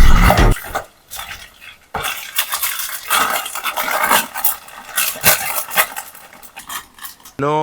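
Kinetic sand being cut and scraped with a utensil: irregular crisp crunching and scraping that starts about two seconds in.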